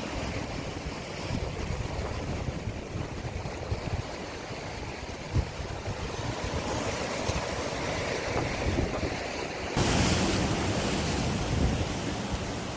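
Sea surf washing on the shore, with wind buffeting the microphone; about ten seconds in the noise turns suddenly louder and hissier.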